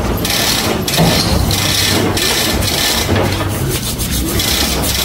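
Chain hoist being worked by hand, its chain rattling and rasping in rhythmic strokes about once a second as it handles a hanging air compressor, over a low steady hum.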